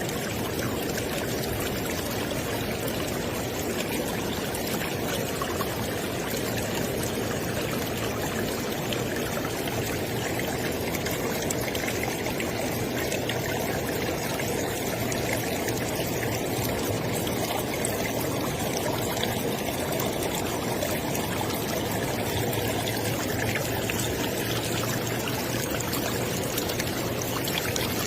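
River water flowing steadily, a continuous rushing and trickling over the stream bed.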